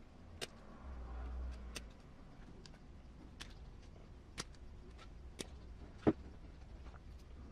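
Scattered light clicks and taps of small kit parts and tools being handled during hand assembly of an RC crawler transmission, about half a dozen separate clicks with the sharpest near the end, and a low rumble of handling noise about a second in.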